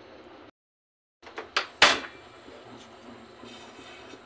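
Low handling noise, a brief dropout to silence, then a few sharp metallic knocks, the loudest just under two seconds in: a frying pan being set on a gas stove.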